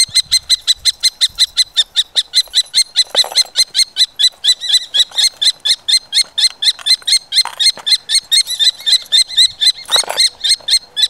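Common kestrel nestlings calling in a rapid, unbroken series of shrill notes, about five a second, stopping abruptly near the end. The chicks are noisy while being handled for ringing.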